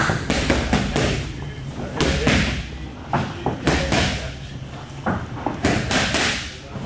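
Boxing gloves striking focus mitts: a run of sharp smacks at an uneven pace, some landing in quick pairs.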